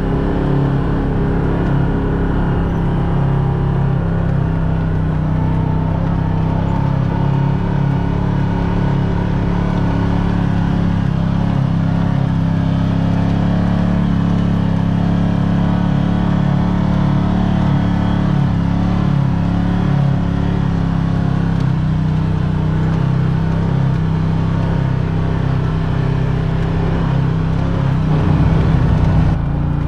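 Side-by-side UTV engine running steadily under way, a constant drone with rough low rumble, swelling slightly near the end.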